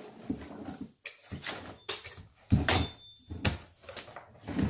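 Irregular wooden knocks and clunks, several of them spread about a second apart, as the freshly undercut piece at the bottom of a door jamb is knocked loose. The oscillating multi-tool is switched off.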